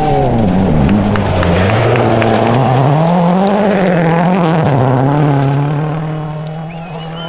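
Rally car engine on a gravel stage, its revs dropping about a second in, climbing again around three to four seconds, then holding steady before fading near the end.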